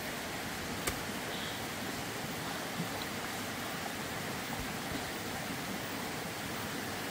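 A steady, even hiss, with a sharp click about a second in.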